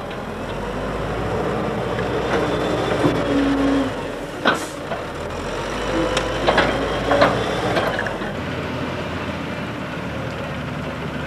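Wheel loader's diesel engine running as it works with its grab fork, with a few sharp clanks around the middle. About eight seconds in the engine sound gives way to a lighter, steady machine note.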